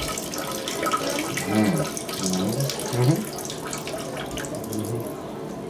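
Urine stream splashing into the water of a toilet bowl, a steady hissing patter that dies away near the end.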